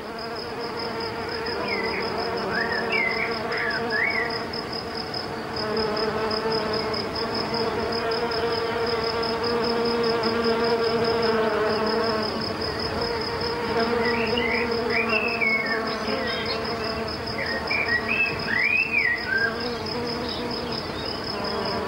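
A bumblebee buzzes steadily as it forages deep in a meadow sage flower. Short high chirps come a couple of seconds in and again near the end, over a faint steady high trill.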